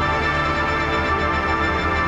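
Background music with many held notes over a steady pulsing bass beat.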